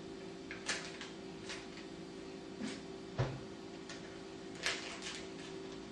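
Scattered light knocks and clicks of a utensil working in a mixing bowl, about six in the few seconds, the loudest a dull thump about three seconds in. A steady low hum runs underneath.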